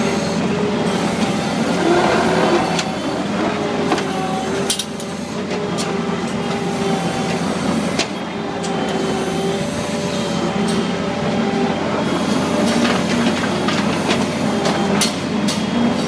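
Engine of a small farm vehicle running steadily as it drives along the feed alley pushing feed with a front blade, with metal clanks and rattles.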